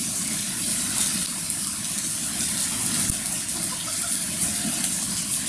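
Heavy monsoon rain pouring onto a flooded street: a steady hiss.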